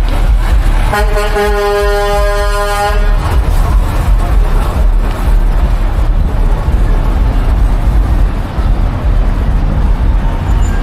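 A vehicle horn sounds one steady note for about two seconds, starting about a second in, over a loud, steady low rumble of street traffic.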